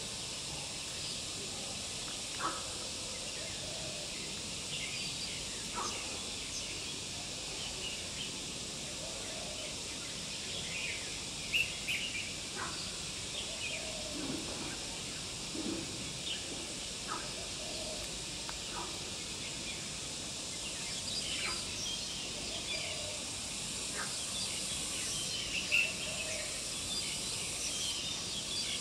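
Outdoor ambience: a steady high hiss with short bird chirps and calls scattered throughout, a couple of them a little louder.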